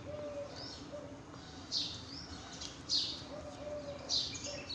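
Birds chirping, with short high calls coming about once a second.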